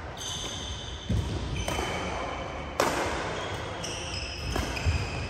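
Badminton doubles rally: several sharp cracks of rackets striking the shuttlecock, mixed with high-pitched squeaks of court shoes on the synthetic floor.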